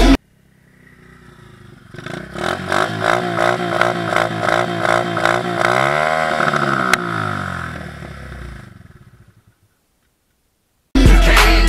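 125 cc dirt bike engine running close by, swelling in over the first couple of seconds. Its pitch rises and falls once about six seconds in, with a sharp click about a second later, and the sound fades out by about nine and a half seconds.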